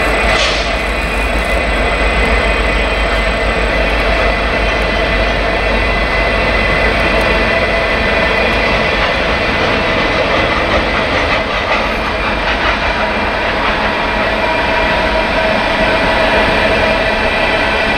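Freight train of open coal hopper cars rolling past on the rails, a steady, unbroken wheel-and-rail noise.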